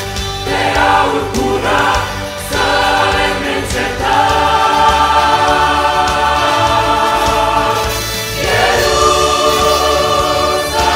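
Church choir singing a hymn in many voices, with phrases that change every second or two and a long held chord in the middle.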